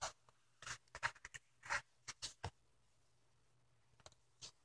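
Handmade card-stock chocolate envelope being handled and opened by hand: a handful of brief, faint paper rustles and clicks, most of them in the first half.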